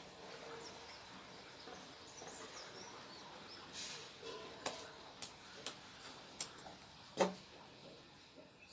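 Faint steady background hiss with a handful of short, sharp clicks and taps in the second half, the loudest about seven seconds in.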